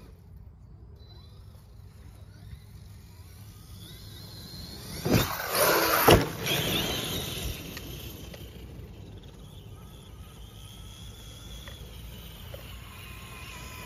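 Arrma Kraton 8S RC monster truck's brushless motor whining as it drives across grass, getting loud as it races past close by about five seconds in, with two sharp knocks about a second apart as it jumps and lands, then fading as it drives away.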